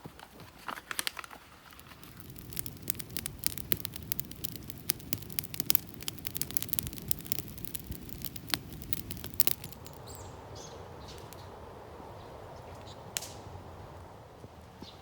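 Campfire crackling and popping in a dense run of sharp snaps over a steady low rush of burning. The snaps thin out after about ten seconds, leaving a softer steady hiss.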